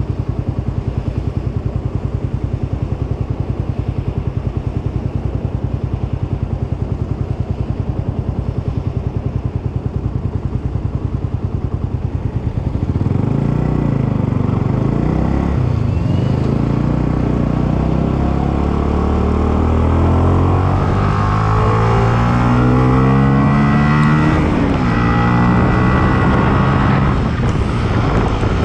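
Yamaha sport motorcycle engine idling steadily, then pulling away and revving up through the gears, its pitch rising several times with a drop at each gear change. Tyres hiss on the wet road and wind buffets the microphone as speed builds.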